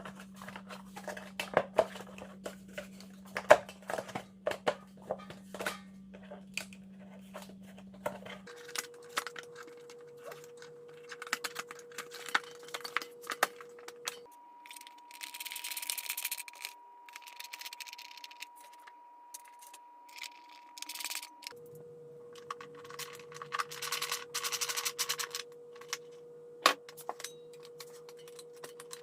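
Small metal parts and copper tubing being handled during a compressor repair: scattered clicks and light taps with two stretches of hissy rustling, over a faint steady hum that jumps in pitch three times.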